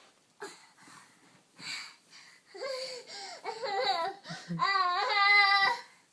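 Toddler fussing and whining: a few short wavering cries, then one longer, louder held wail near the end.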